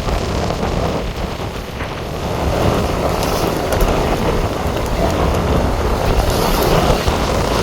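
Strong, gusty hurricane wind buffeting the microphone, with rumbling low-end blasts, getting louder about two seconds in.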